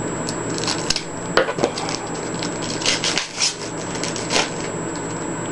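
Trading cards being handled and flipped through, with scattered soft clicks and rustles of card stock over a steady background hiss.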